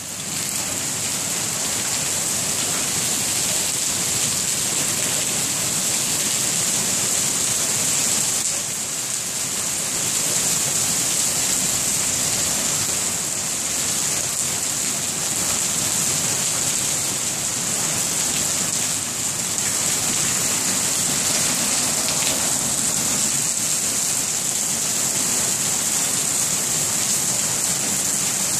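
Heavy thunderstorm rain mixed with small hail pelting wet concrete pavement and puddles: a dense, steady hiss with no pauses.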